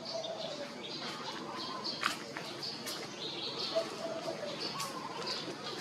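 Small birds chirping: short high chirps repeating throughout, with a couple of sharp clicks about two and three seconds in.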